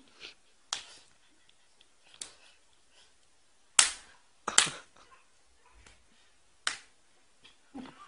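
Open-hand slaps to the face, traded playfully between a man and a small child: five sharp smacks at uneven gaps of one to two seconds, the loudest pair close together about four seconds in.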